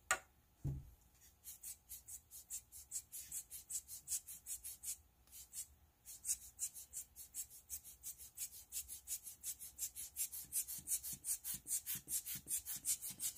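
Hand-squeezed rubber bulb air blower pumped rapidly, each squeeze letting out a short hiss of air, about four a second with a brief pause midway, drying wet alcohol ink rather than pushing it around. A click and a thud come just at the start.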